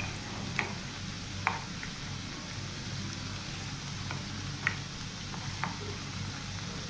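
Battered fish pieces deep-frying in hot oil in a non-stick pan: a steady sizzle with a few sharp ticks, as a wooden spatula gently turns the pieces.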